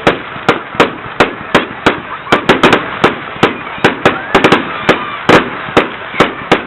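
Fireworks going off in a rapid, uneven string of sharp bangs, about three or four a second, some coming in quick clusters.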